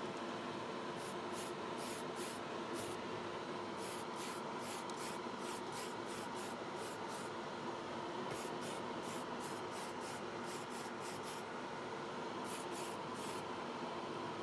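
Primer being sprayed onto a model car body in quick short bursts, about three a second, in several runs, over the steady hum of a spray booth's extractor fan.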